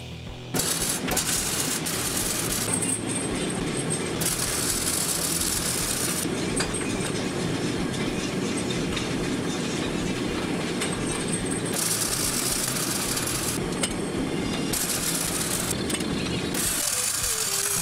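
Electric arc welding a steel chain onto steel profiles: a steady crackling sizzle of the arc, which gets hissier for a couple of seconds at a time, three times.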